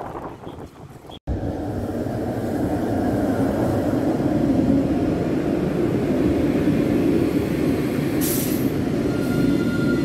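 A tram rolling past close by, a steady rumble of its steel wheels on the rails that starts abruptly after a short drop-out about a second in. Near the end comes a brief hiss, then a thin steady high tone.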